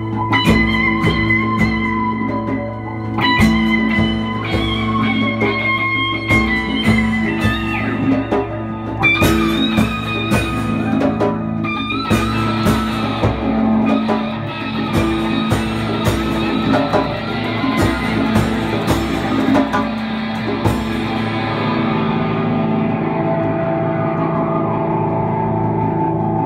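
Live band instrumental passage: an acoustic guitar strumming together with an electric guitar. About three-quarters of the way through, the strumming stops and a held chord drones on.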